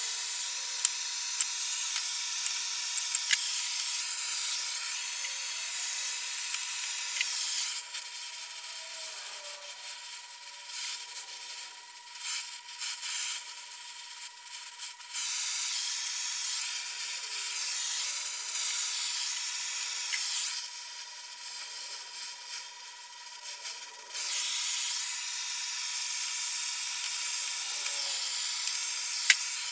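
Oxy-fuel torch flame hissing while brazing a cracked cast iron lathe tailstock, the hiss louder in long stretches and dropping back in between as the flame is worked on and off the part. A few sharp clicks, the loudest near the end.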